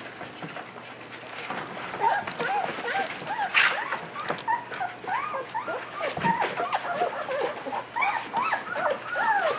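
A litter of young German Shepherd puppies whimpering and squeaking. Many short, high cries rise and fall and overlap, starting about two seconds in.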